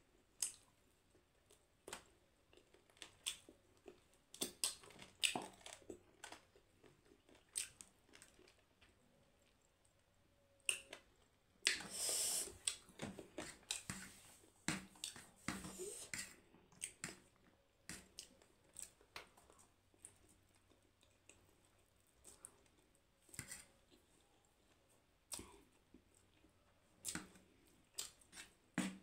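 A person eating spicy instant noodles and roast chicken: chewing and mouth smacks with short clicks of a fork on the plate. In the middle a louder, busier stretch of clatter and squishing as the noodles are stirred with the fork.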